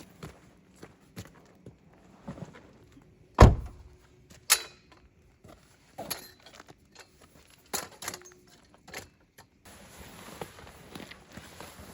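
Handling noise from a portable keyboard being moved in a car: scattered knocks and clicks, with a loud thump about three and a half seconds in and another about a second later.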